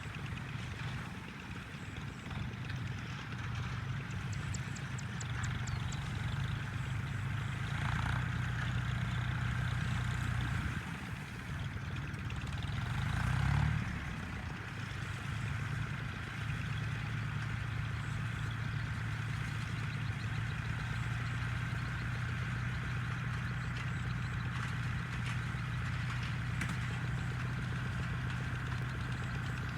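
A toy tractor's motor running steadily with an engine-like hum, swelling briefly about halfway through.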